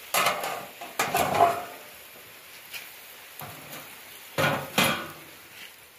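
Metal clattering: a sheet-steel cover and a metal fork knocking against a charcoal grill, in two pairs of sharp clanks, one pair near the start and one near the end.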